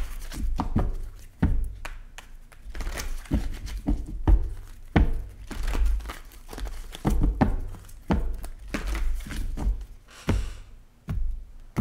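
A deck of tarot cards being shuffled by hand: many quick slaps and flicks of cards against each other, with brief papery rustles and dull low thumps in between.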